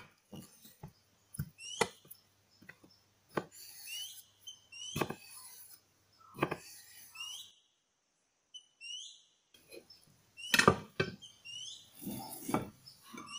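A chef's knife cuts through a block of pickled yellow radish and knocks on a wooden cutting board. The knocks are sharp and come at irregular intervals, with a pause of a couple of seconds in the middle. Short bird chirps are heard between the cuts.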